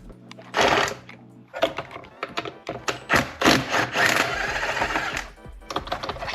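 Hand tools working on a Honda B-series manual transmission during teardown: a short burst, then several seconds of rapid metallic clicking and scraping, a brief pause, and more clicking near the end.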